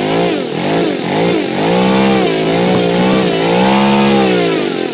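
Saito FG-14B single-cylinder four-stroke gasoline model aircraft engine with RCEXL electronic ignition, driving a 13x6 Master Airscrew three-blade propeller, revving up and down as its throttle is worked by hand; the pitch rises and falls several times, holding higher for about a second near the middle and again toward the end.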